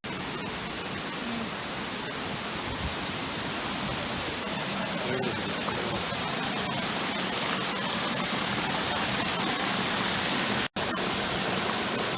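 Steady rushing of water from a waterfall or stream, a dense even hiss, broken once by a sudden cut near the end.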